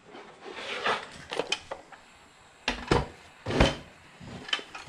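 A few separate knocks and clatters of things being handled and set down on a workbench while a work light is moved into place.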